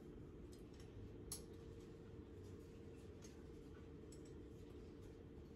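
Near silence: room tone with a steady low hum and a single faint tap about a second in.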